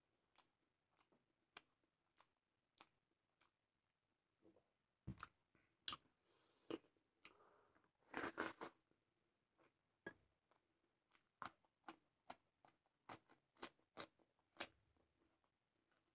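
Eating rice and egg curry by hand: scattered soft clicks and wet smacks of fingers working the rice and of chewing, with a louder cluster about eight seconds in as a handful goes into the mouth.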